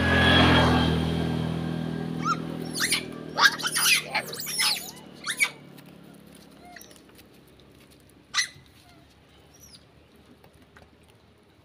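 A motorbike passes on the road, its engine hum loudest near the start and fading away over the first few seconds. Macaques give a quick run of short, sharp squeals and screeches about two to five seconds in, then a few fainter chirps and one short call later on.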